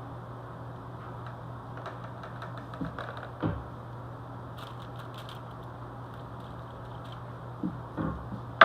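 Steady low hum of a household appliance running, with scattered light clicks and taps from kitchen work. A sharper knock near the end is the loudest sound.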